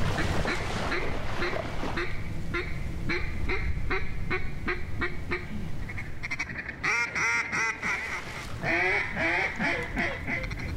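Mallard duck call (Echo) blown in a series of even quacks, about two a second, then quick runs of chattering feed-call notes in the second half.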